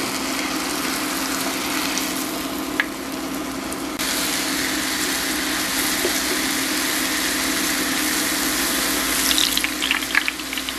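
Apple sticks in a cornstarch batter deep-frying in a saucepan of hot oil: a steady sizzle and bubbling, louder from about four seconds in. Near the end, a few light clinks and scrapes of a metal mesh skimmer against the pot.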